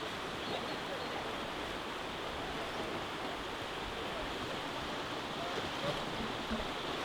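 River water rushing steadily, a constant even hiss.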